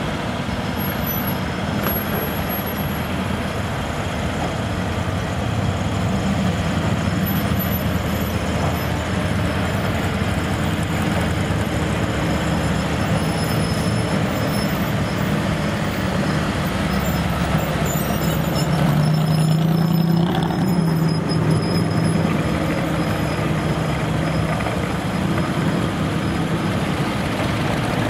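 Classic cars and pickup trucks driving slowly past, their engines running at low speed in a steady overlapping drone. One engine comes through louder and deeper about two-thirds of the way through, then eases off.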